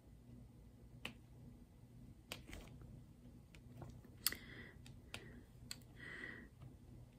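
Faint, scattered clicks and taps of a diamond-painting drill pen pressing resin drills onto the canvas, the sharpest about four seconds in, with two short rustles of the plastic cover sheet.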